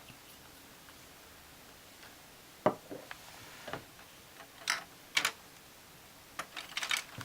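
Scattered light clicks and taps of small objects being handled on a tabletop, with a quick run of clicks near the end.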